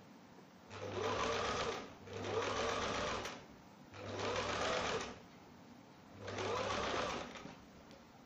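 Electric domestic sewing machine stitching an embroidered rose appliqué onto a dress, in four short runs of about a second each with brief stops between them.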